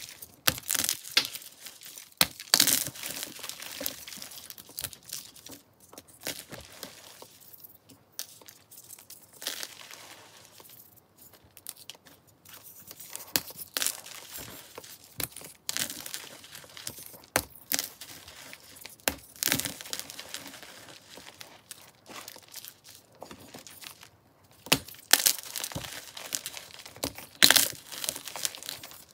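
Hands crushing and crumbling blocks of powdery blue-dyed chalk: irregular dry crunches and crackles with softer crumbling in between. The densest, loudest crunches come near the start and again toward the end.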